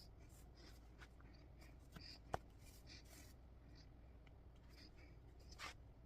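Faint scratching and rustling of thread being pulled through cross-stitch fabric, with one sharp click about two and a half seconds in and a louder rustle near the end.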